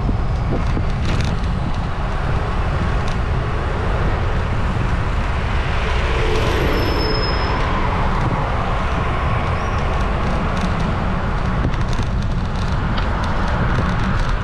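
Steady road traffic noise with a low rumble, typical of wind buffeting the microphone while on the move.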